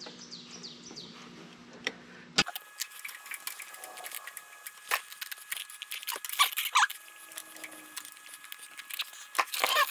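Light metallic clicks and ticks of a hydraulic line's compression nut being turned by hand as it is threaded into the rear-axle fitting of a Ford 3000 tractor. A faint steady hum gives way to a sharp click about two and a half seconds in, after which the small clicks come scattered and uneven.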